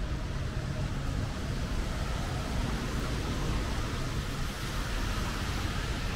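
Steady street noise on a rainy evening: traffic on wet pavement and falling rain, a continuous hiss over a low rumble.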